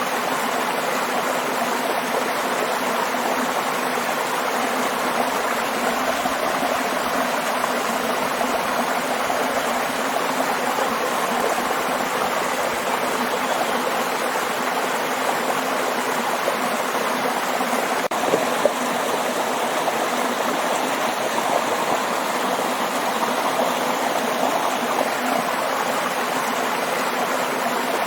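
Waterfall water rushing and splashing steadily, an even unbroken roar, with one small click about two-thirds of the way through.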